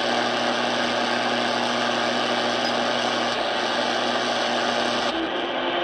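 Sangean ATS-909X2 shortwave receiver's speaker in AM mode giving steady static hiss with a low buzzing hum while the 49-metre band is tuned between stations. The hiss turns duller about five seconds in.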